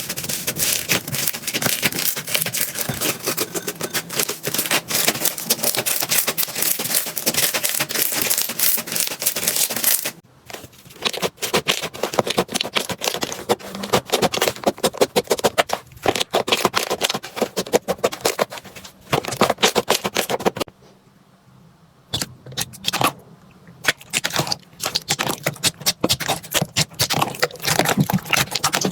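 Slime being squeezed and worked, a dense run of small crackling, popping clicks with a few short breaks.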